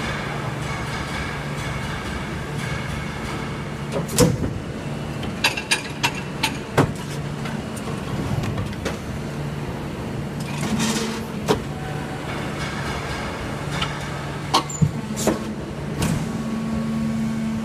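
Hydraulic injection moulding machine running through a cycle: a steady hum with sharp metallic clunks and clicks as the mould closes and clamps, and a brief hiss a little past the middle.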